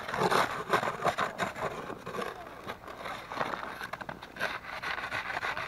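Irregular scraping and brushing strokes as a fallen log is cleared off by hand.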